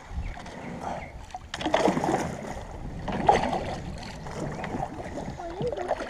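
Kayak setting out on the water: splashing and knocking of hull and paddle handling, with two louder bursts about two and three seconds in.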